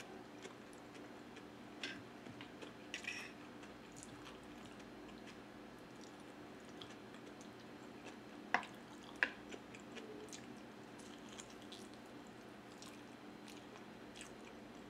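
Faint close-up chewing and wet mouth sounds of someone eating macaroni salad and chicken adobo. A few short, sharp smacks or clicks come through, the clearest two close together just past halfway.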